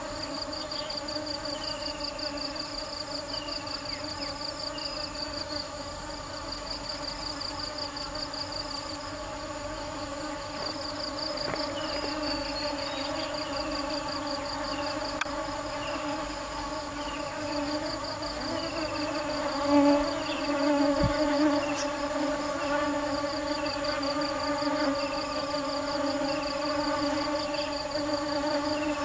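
Honeybees buzzing in a steady, even drone around flowers. A fast high insect trill comes and goes above the hum, with short falling chirps repeated about once a second. The hum swells briefly about two-thirds of the way through.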